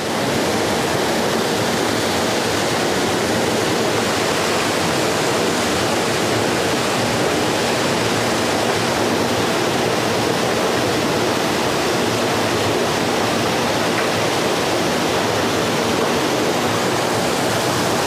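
Small waterfall within a forest river, water pouring into a deep pool: a steady, even rush of falling water.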